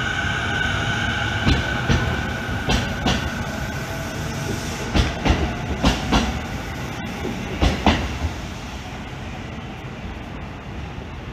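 JR East E217 series electric commuter train pulling out of the station past the platform. A steady electric whine is heard at first, and the wheels clack in pairs over rail joints as each car passes. The sound fades after about eight seconds as the last car moves away.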